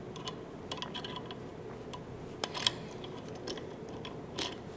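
A few scattered light metallic clicks and taps as a Lishi 2-in-1 pick-decoder is handled against a brass Schlage-type pin-tumbler lock cylinder and its tip is fitted into the keyway.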